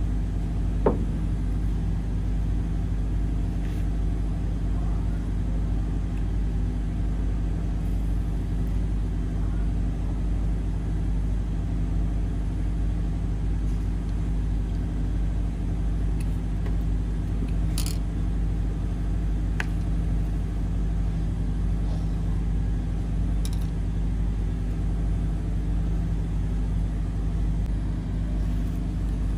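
A ship's engine running steadily with a low rumble, heard from on deck, with a sharp click about a second in.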